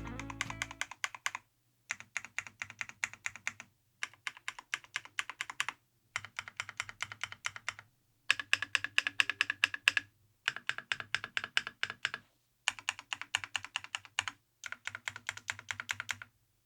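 Typing on a KiiBoom Phantom 81 V2 transparent mechanical keyboard: quick runs of key clacks, about eight bursts in all, each split from the next by a short silence.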